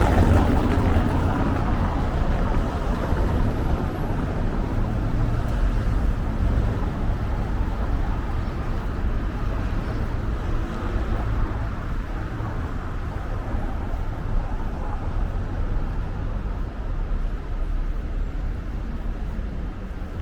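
City street traffic noise: a steady low rumble of passing vehicles, loudest at the start and slowly easing off.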